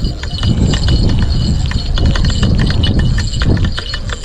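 Offshore Angler Tightline TLB4000 spinning reel cranked fast while fighting a hooked fish: quick clicking from the reel's gears over a heavy, rhythmic low rumble of hand and reel rubbing right at the microphone.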